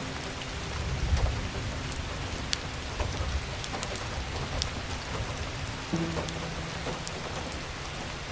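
Wood fire in a fireplace crackling and hissing, with scattered sharp pops, under soft background music; a held low note comes in about six seconds in.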